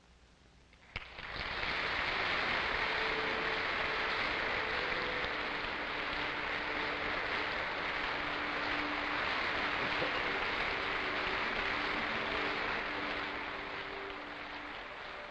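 Audience applauding, starting suddenly about a second in and easing a little near the end.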